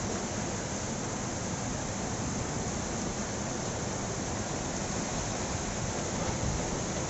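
Heavy rain pouring steadily with strong wind, a dense even hiss that holds without a break.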